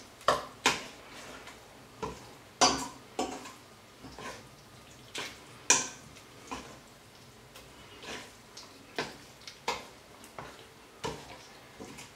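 Metal spoon clinking and scraping against a stainless steel mixing bowl while stirring a thick mixture: irregular sharp knocks, some ringing briefly, the loudest near the start and around three and six seconds in.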